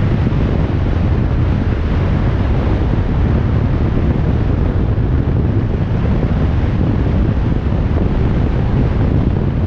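Steady wind rushing over the camera microphone on a moving motorcycle, with the low rumble of the Harley-Davidson V-twin underneath at a constant cruising speed.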